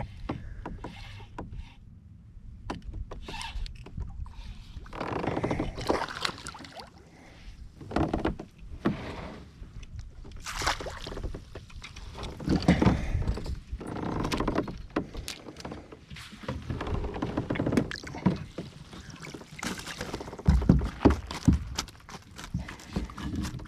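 Irregular knocks, rustles and water sounds from handling aboard a fishing kayak.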